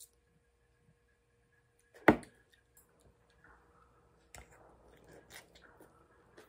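Eating utensils knocking against a metal serving pan and the table: one sharp, loud knock about two seconds in, then a few lighter clicks.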